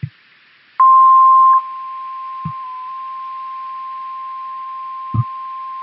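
NOAA Weather Radio warning alarm tone: a single steady 1050 Hz tone starting about a second in, loud for under a second and then carrying on at a lower level, over faint radio hiss. The tone signals an urgent warning to alert receivers; a few soft low thumps occur under it.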